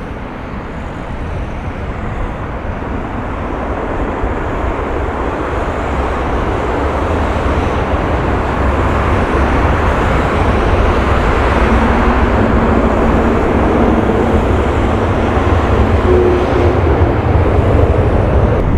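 Twin-engine jet airliner landing: the jet engines and a deep rumble grow steadily louder, with a faint hum joining in during the later part.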